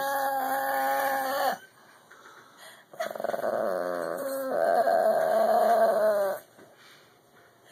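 Small long-haired dog making two long, drawn-out whining moans while being scratched, the first ending about a second and a half in and the second lasting about three seconds. It is the ambiguous vocalizing that can't be told apart as pleasure or protest.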